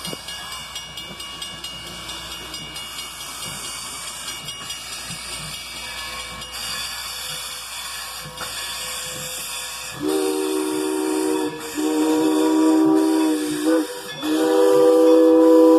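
Steam hissing from 1925 Baldwin 2-8-0 No. 40 as it moves slowly, then its chime whistle sounding a chord of several notes in three blasts from about ten seconds in, the third still going at the end. The uploader guesses the whistle is a Crosby.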